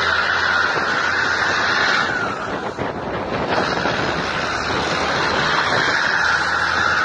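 Steady wind rush and road noise of a moving car heard through its open window, easing briefly about two seconds in.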